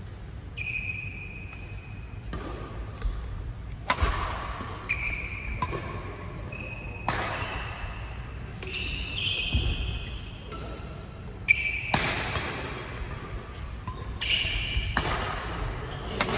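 A badminton rally: rackets strike the shuttlecock in sharp smacks a second or two apart, and court shoes squeak in short high squeals on the hall floor between shots.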